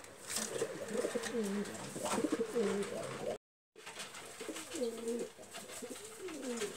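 Domestic pigeons cooing: a string of low coos that rise and fall in pitch. The sound cuts out completely for a moment a little past the middle.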